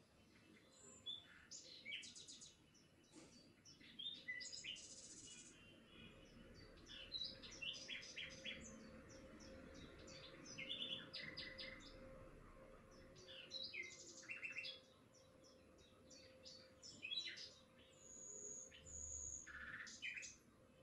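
Birds chirping, faint: many short, high calls from several birds, overlapping and irregular. A faint steady hum runs underneath.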